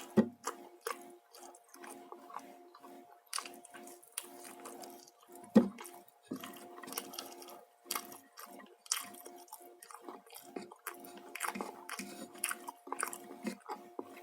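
Close-miked chewing and biting of a person eating, a steady run of wet mouth smacks and small crunches. Two sharper clicks stand out, one just after the start and one about midway.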